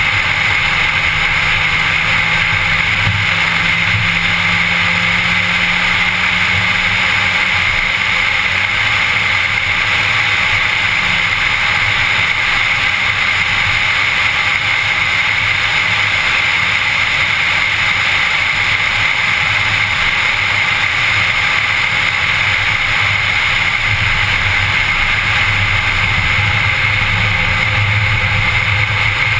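Steady road and engine noise of a car being driven at speed, heard from inside the cabin, with no change in pace. A low engine drone holds steady for the first several seconds, then fades into the noise.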